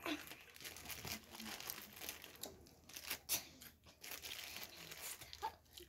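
Packaging crinkling and tearing as it is handled, in irregular rustles with a few sharper crackles.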